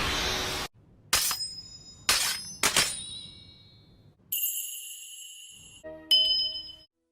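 A run of short anime sound effects. A noisy rush cuts off, then come three bright chiming strikes, a high steady shimmer, and a final ringing chime that dies away.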